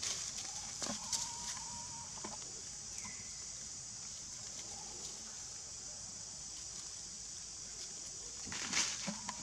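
Outdoor forest ambience: a steady high-pitched insect drone, with dry leaves crackling under monkeys moving over the ground about a second in and again near the end. A short animal call, one held note, comes about a second in.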